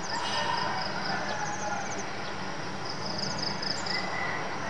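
Insects chirping in high, rapid trills that stop and start, over a steady background hiss and low hum.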